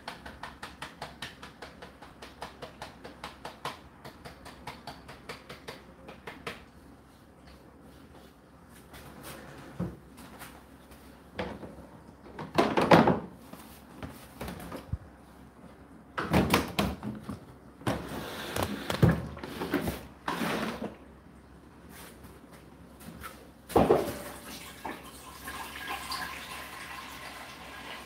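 Quick clicks, about three a second, for the first six seconds, then loud knocks and plastic handling from the Indesit condenser tumble dryer's water container being pulled out, followed near the end by a steady rush of water being poured or run away.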